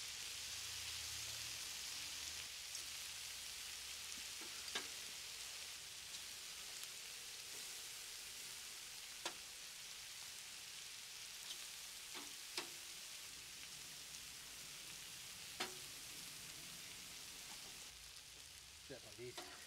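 Skirt steak and fajita vegetables sizzling on a charcoal grill, a steady quiet hiss. A few sharp clicks of metal tongs against the grill grate come several seconds apart.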